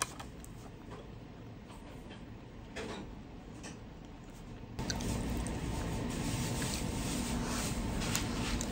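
Soft handling and eating noises over room tone, with light taps and clinks of a spoon against a ceramic bowl of oatmeal. About five seconds in the background steps up suddenly to a louder steady hum.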